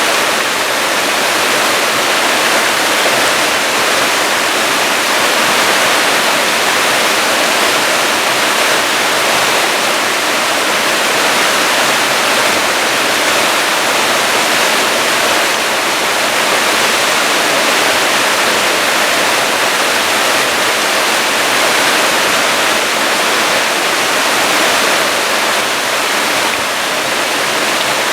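Waterfall pouring: a loud, steady rush of falling water with no letup.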